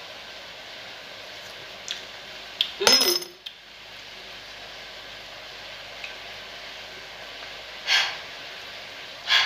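A metal utensil clatters against a cooking pot about three seconds in, ringing briefly, after a few small clicks, over a steady hiss. Two short breathy sounds come near the end.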